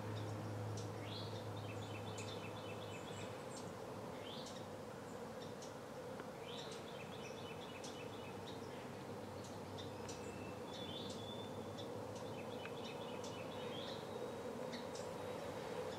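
A songbird singing a short repeated phrase, a quick rising note followed by a rapid run of notes, about every two seconds. Faint high chips sound between phrases over a steady low hum.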